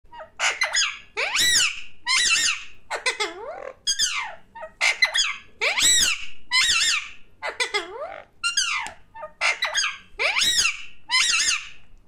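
Alexandrine parakeet calling over and over, a steady run of short, loud, high calls, each sliding down in pitch, about one and a half a second.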